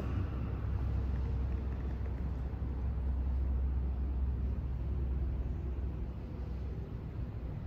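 Steady low rumble with a faint even hiss above it, and a brief click at the very start.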